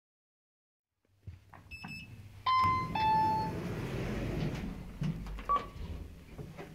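After about a second of dead silence, a lift's two-tone chime sounds: a beep followed by a slightly lower, longer one, over the steady hum of the moving lift car, with a few light clicks.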